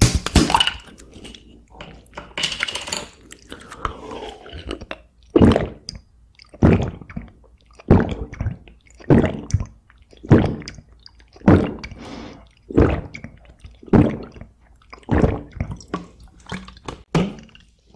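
A person gulping water from a plastic bottle: a steady run of about a dozen swallows, a little over a second apart, starting about five seconds in. Before that, wet mouth and liquid sounds.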